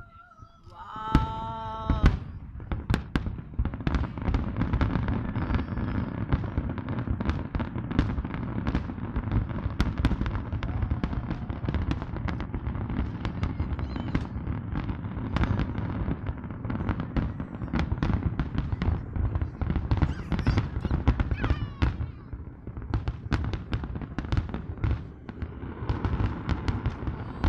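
Aerial fireworks display: a dense, continuous run of bangs and crackles from shells bursting overhead, starting about a second in.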